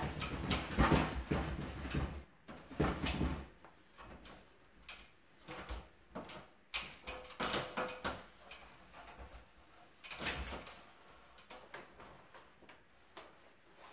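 Rustling and irregular knocks from a roll of self-adhesive wallpaper being handled up against a ceiling, busiest in the first three seconds, then sporadic.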